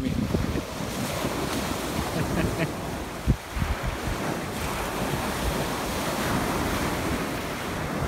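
Waves breaking on a beach, with wind buffeting the microphone as a steady rush. A single dull thump stands out a little over three seconds in.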